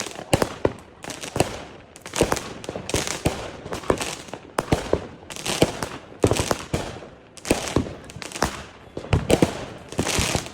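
Fireworks going off: an irregular string of sharp bangs, a few a second, with crackling between them, stopping suddenly at the end.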